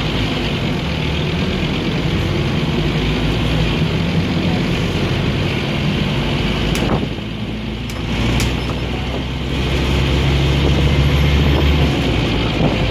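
Scania OmniCity bus engine and drivetrain running, heard from inside the passenger cabin while the bus is under way. A little past halfway the engine note drops back for about a second, with a few sharp clicks, then it pulls harder with a deeper, louder hum near the end.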